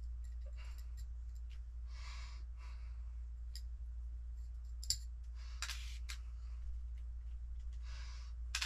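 Light clicks and taps of small metal screws and nuts being picked out of a plastic parts tray and set on a digital scale, with a few soft whooshes, over a steady low hum.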